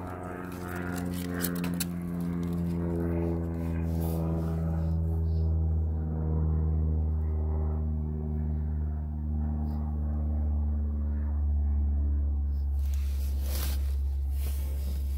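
An airplane passing overhead: a steady, loud drone whose pitch slowly falls as it goes by.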